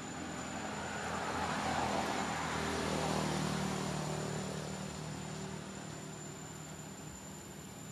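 A passing engine, its drone swelling louder and then fading away over a few seconds, with a steady low hum under it.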